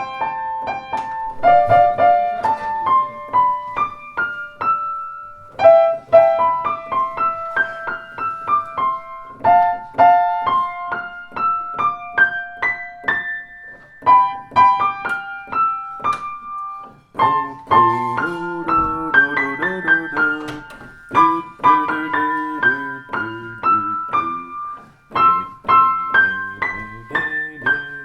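Solo piano music played on a Blüthner grand piano: a melody of single notes, joined by a fuller, lower accompaniment about two thirds of the way in.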